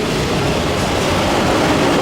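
Freight train cars rolling past, a loud steady rumble of steel wheels on the rails.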